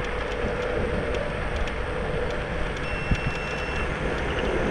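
Xiaomi Mi Pro 2 electric scooter riding at speed: a steady whine from its hub motor over the rushing noise of tyres and wind, with faint regular clicks. A short, thin high tone sounds for about a second, about three seconds in.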